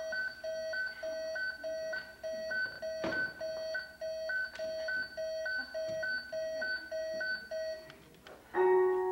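A telephone repeatedly beeping, about two beeps a second, which stops near the end. A piano chord is then struck and left to ring.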